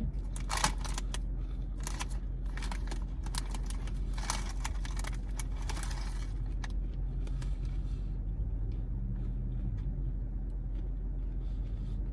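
Crisp crunching of a caramel Quaker Rice Crisp being bitten and chewed, many sharp crunches over about the first six seconds, then dying away. A steady low hum runs underneath throughout.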